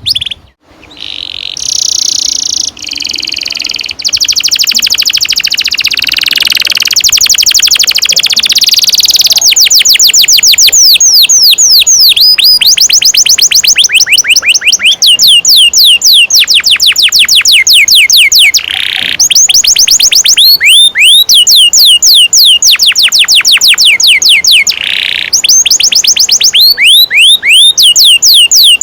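Domestic canary singing long rolling trills: fast runs of rapidly repeated high notes, many of them quick downward-sweeping whistles. The song switches between phrases every few seconds.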